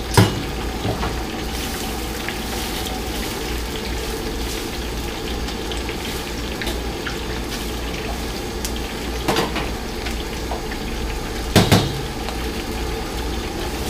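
Pla kang catfish pieces deep-frying in a wok of hot oil, a steady bubbling sizzle. Sharp metal clanks of a utensil against the wok come at the very start, about nine seconds in and twice near eleven and a half seconds.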